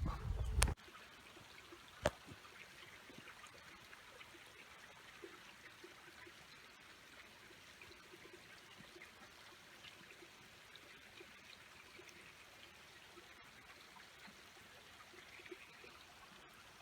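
Faint trickle of a small mountain stream or pool running over rocks. A brief low rumble at the very start cuts off abruptly, and there is one sharp click about two seconds in.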